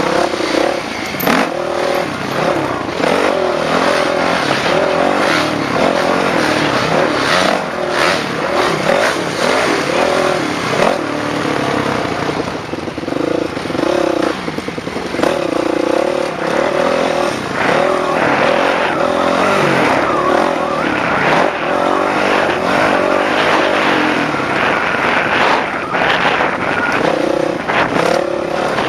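Dirt bike engine being ridden hard around a dirt track, its pitch rising and falling again and again as the throttle is opened and closed, over a steady rushing noise.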